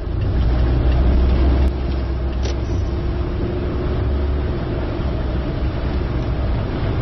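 A car driving, with steady road and engine noise. A heavy low rumble is strongest for the first second and a half, then settles to an even level.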